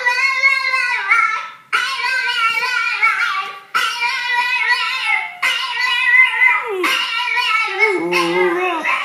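A dog howling in long, wavering notes, about four in a row, the last one sliding lower in pitch.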